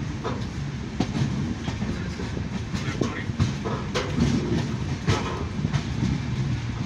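Netravati Express passenger train running, heard from the open doorway of a moving coach: a steady rumble of wheels on rail with irregular sharp clicks as the wheels pass over rail joints.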